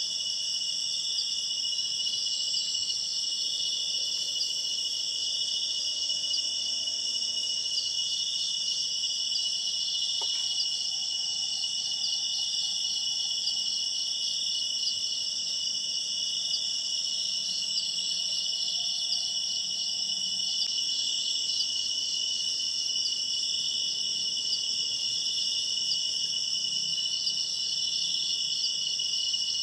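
Chorus of crickets and other insects: a steady, high-pitched trilling in several overlapping pitches that keeps up without a break.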